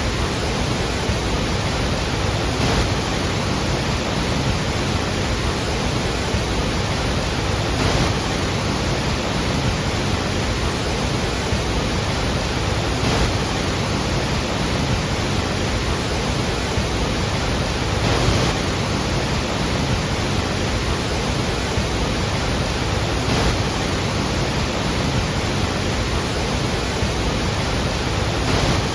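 Iguazu Falls pouring down: a steady, dense rush of falling water, with slight swells about every five seconds.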